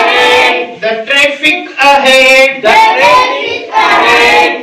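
A group of schoolchildren singing an English action rhyme together in unison, in short sung phrases with brief breaks between them.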